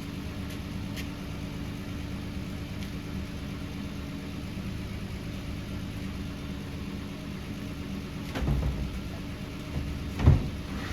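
A Toyota Tacoma's engine idling steadily, with a low thump about eight seconds in and a sharper, louder knock near the end.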